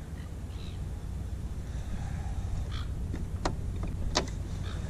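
Low, uneven rumble of wind on an action camera's microphone on open water, with a few sharp knocks and clicks of gear being handled on a plastic fishing kayak, the loudest two about three and a half and four seconds in.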